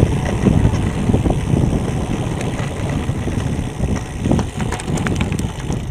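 Wind buffeting a handlebar-mounted action camera's microphone while a road bike rolls over a loose gravel road, the tyres crunching. From about four seconds in, scattered short clicks of gravel stones.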